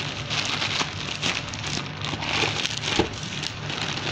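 Plastic courier mailer bag crinkling and rustling as hands grip and pull at it, a dense run of small crackles.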